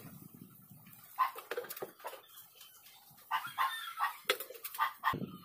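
Backyard animals calling: a short pitched call about a second in, then a cluster of short calls in the second half, over faint rustling and clicks of foam being handled.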